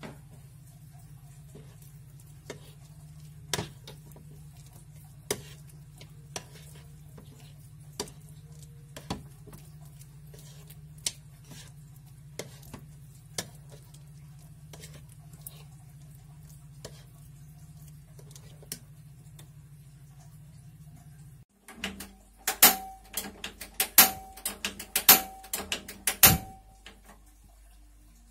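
A metal spoon stirring banana pancake batter in a glass bowl, clinking against the glass about once a second over a steady low hum. Near the end comes a quick run of louder, sharp metallic clicks and clanks from a gas stove and a small pan, some with a brief ring.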